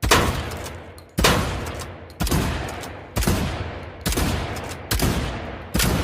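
Mossberg 500 Cruiser pump-action shotgun firing seven shots, about one a second, each blast followed by a long echoing tail.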